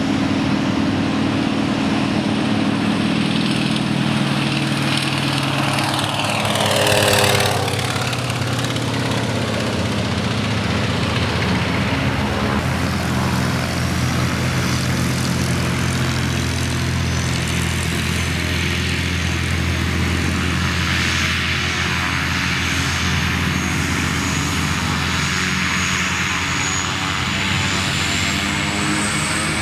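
Antonov An-2 biplane's nine-cylinder radial engine and propeller running at takeoff power. It grows loudest as the plane passes close by about seven seconds in, dropping in pitch as it goes past, then drones on steadily as it climbs away.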